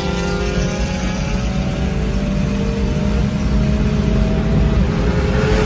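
Turbocharged four-cylinder car engine accelerating hard, its pitch climbing steadily through one long pull before letting off near the end.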